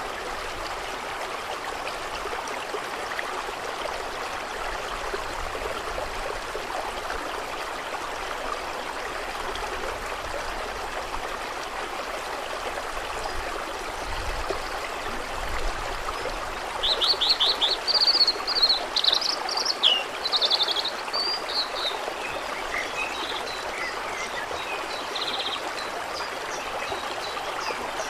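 Steady running water, with a songbird singing a quick series of trilled notes about two-thirds of the way through and a few scattered chirps after it.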